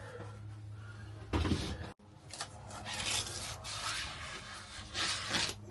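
Repeated scraping and rubbing strokes on the trailer roof around the air conditioner opening as it is cleaned up for a good seal, with a louder rustling knock about a second and a half in.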